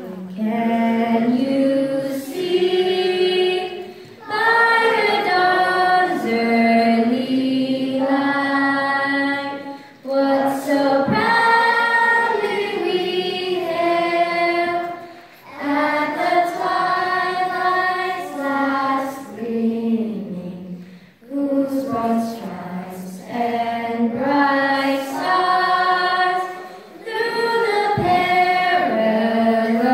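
A young girl singing a national anthem solo and unaccompanied into a handheld microphone, in phrases of a few seconds with short breaths between them.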